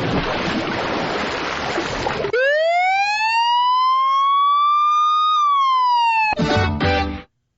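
Sound-effect mix: about two seconds of rushing noise, then a siren-like whistling tone that glides slowly up for about three seconds and then drops, ending in a short buzzy blast that cuts off.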